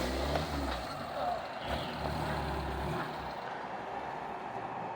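Engine of an off-road vehicle crawling over rocks. It is louder for the first three seconds and then eases off.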